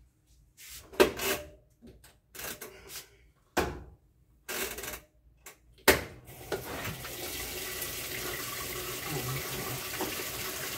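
Whirlpool top-load washing machine being started: a few sharp knocks and clicks as it is handled and its dial set, then, about six and a half seconds in, a steady rush of water as the drum begins to fill.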